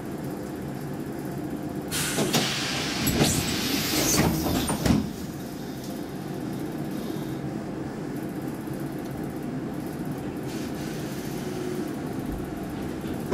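Interior running noise of a Saltsjöbanan C10/C11 commuter train: a steady rumble, with a louder hissing, clattering stretch from about two to five seconds in.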